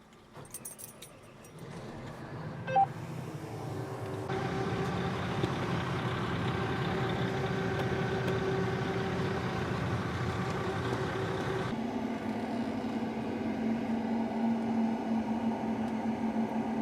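John Deere combine machinery running, heard from the cab: after a few clicks, a steady mechanical hum builds up over the first few seconds and settles into an even drone. About twelve seconds in its tone shifts, with a lower hum coming forward.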